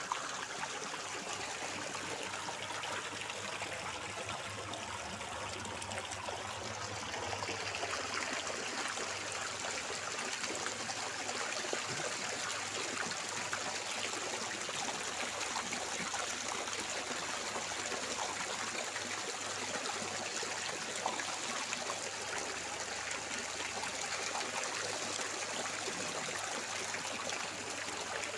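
Water trickling and splashing steadily, with a faint low hum underneath.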